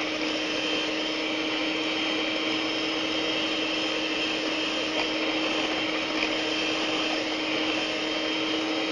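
Electric hand mixer running steadily at one speed, its beaters whipping cold cream and mascarpone in a bowl: a constant motor hum with a high whine over it.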